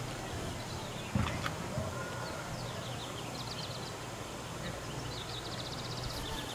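Small birds chirping, with quick trills and short falling notes, over a steady low hum; a brief thump about a second in.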